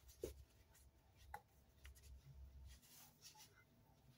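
Near silence with faint handling noise: soft rustles and a couple of small clicks as hands tie a knot in a recoil starter rope.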